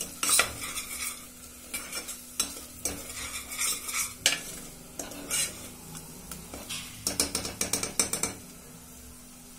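Metal spoon stirring and scraping onions and ginger-garlic paste frying in butter in a pressure cooker, with a light sizzle, over a steady low hum. A quick run of strokes comes about seven seconds in, then the stirring stops about a second before the end.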